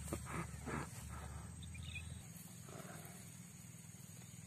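Quiet outdoor field ambience: a few soft rustles and clicks in the first second, then a faint steady low rumble under a thin high hiss.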